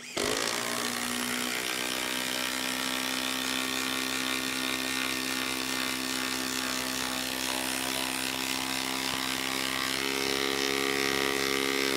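Makita 18V impact driver hammering continuously as it drives a 6-inch lag screw into a log round for about twelve seconds, with a slight shift in pitch near the end. It stops suddenly once the lag is seated, having driven it with ease.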